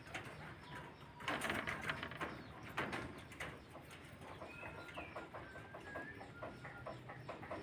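Black-collared doves cooing, with two short rustling noises in the first half and a run of short, high chirps from about halfway on.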